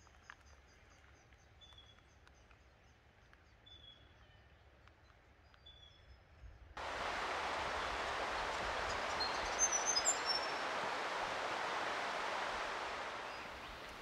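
Faint bird calls, short high notes repeated about every two seconds over a thin rapid high trill. About halfway through, a loud steady rushing noise starts abruptly, with a few high bird chirps over it, and eases off near the end.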